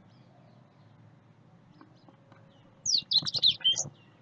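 A bird chirping: one burst of quick, falling high-pitched chirps about three seconds in, over faint background noise.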